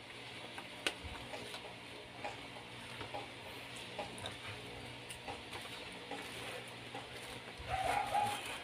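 Scissors cutting open a plastic bubble mailer: a scatter of small snips, clicks and crinkles from handling the package, with one sharper click about a second in.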